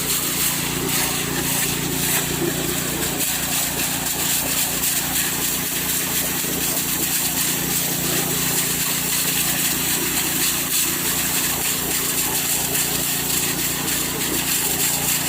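Small petrol engine of an alkon water pump running steadily at a constant speed.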